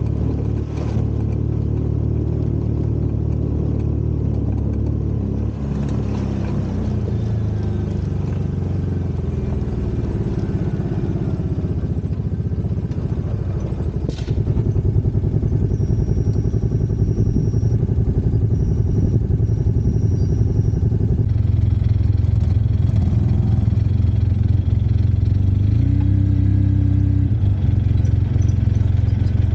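Off-road vehicle engine running steadily under way, getting louder about halfway through and staying there.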